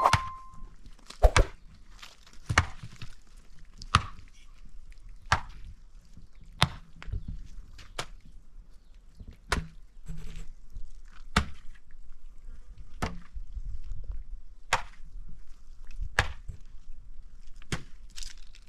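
A hand tool striking hard material over and over: about a dozen sharp blows, roughly one every one and a half seconds, like chopping or digging.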